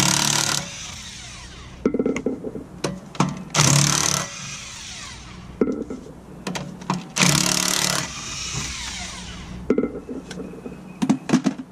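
Cordless impact wrench hammering the lug nuts off a car's rear wheel in three short bursts, each trailing off in a falling whine, with metallic clicks of the socket and nuts in between.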